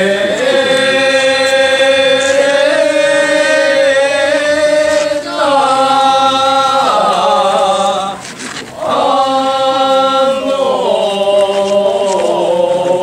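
Festival participants' voices chanting together in long held notes, the pitch stepping from note to note, with a short pause for breath about eight seconds in.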